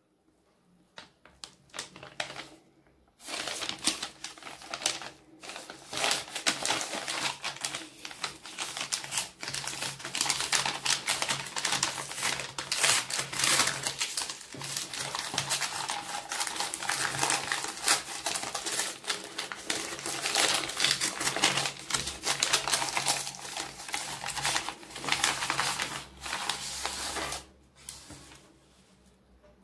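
White padded paper mailer being handled and torn open: dense crinkling, rustling and tearing of paper, starting about three seconds in and dying away near the end.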